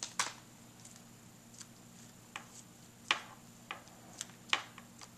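Aluminium foil being handled and pressed into play-doh: a scattering of light, irregular clicks and crinkles, with a faint steady hum underneath.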